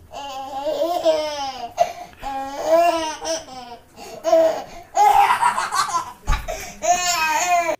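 Toddler laughing in repeated bursts of giggles and belly laughs. A dull low thump comes about six seconds in.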